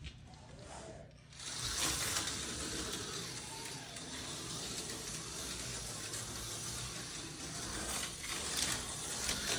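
Tyco HO-scale slot car's small electric motor running on the track, a steady hissing whir that starts about a second and a half in.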